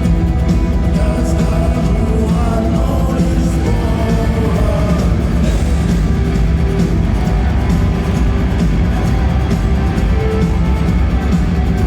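Live rock band music, loud and steady, with a sung vocal line over it.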